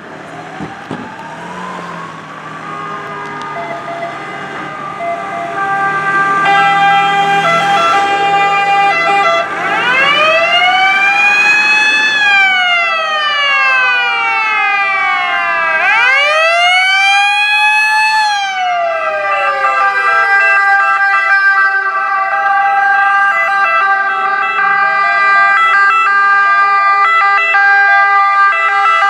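Several ambulance and emergency-car sirens sounding together as the vehicles drive past, growing louder over the first several seconds. Slow wailing sweeps that rise and then fall come near the start and twice in the middle, over several steady held siren tones.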